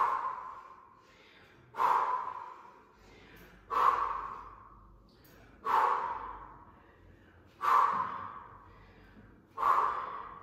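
A woman breathing out hard six times, about every two seconds, each exhale starting suddenly and fading over about a second: breaths of effort in rhythm with squat-and-curl repetitions.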